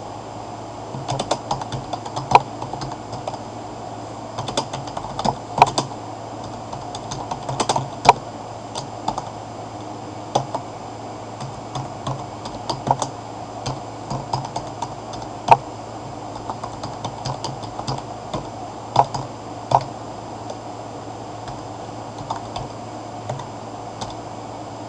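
Typing on a computer keyboard: irregular keystrokes throughout, with a few much louder key presses among them, over a steady low hum.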